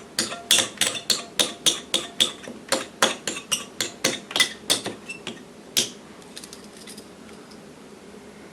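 A quick series of sharp metal taps and clicks, about three or four a second, from hand tools worked against a metal radio chassis; they stop just under six seconds in after one last loud tap.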